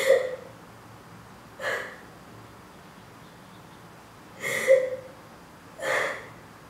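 A woman crying: four short, breathy sobs a second or two apart.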